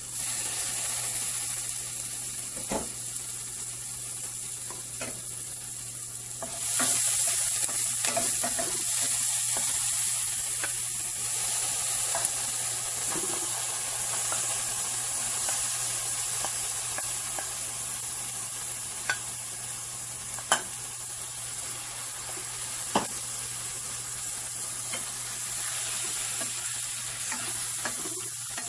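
Garlic, tomatoes and ground pork sizzling in hot oil in a stainless steel sauté pan while being stirred with a wooden spoon, with a few sharp taps of the spoon against the pan. The sizzle gets louder about seven seconds in.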